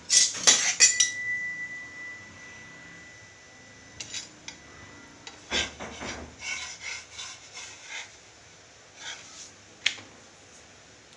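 Steel spatula clattering and scraping against a non-stick tawa as a thin chapati is worked on it: a loud clatter in the first second, then scattered taps and scrapes.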